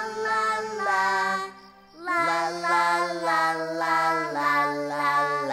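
Voices singing a song over an instrumental backing, in two phrases with a short break about two seconds in.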